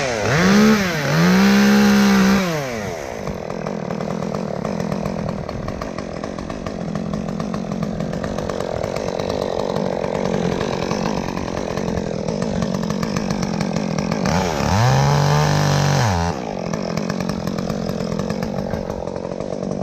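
Two-stroke chainsaw idling in a steady patter, revved up twice for about two seconds each, near the start and again about fifteen seconds in, its pitch rising to a high steady note and falling back to idle.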